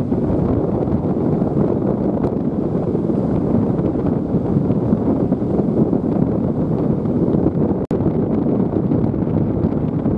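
Strong wind buffeting the microphone in a steady low rush, with a brief dropout about eight seconds in.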